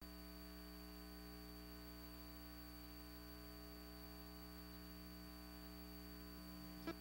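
Faint steady electrical hum with a low hiss, and a brief pitched blip just before the end.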